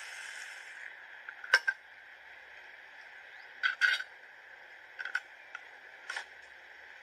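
Metal lids clicking and scraping against glass jars as they are fitted and closed: a handful of sharp clicks, some in quick pairs, over a steady hiss.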